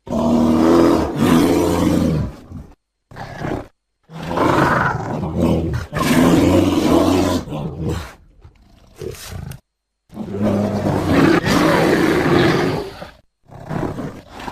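A series of deep bear roars, presented as a polar bear's, cut one after another with abrupt silent gaps between them. There are about six roars; the longest lasts around four seconds, from about four seconds in.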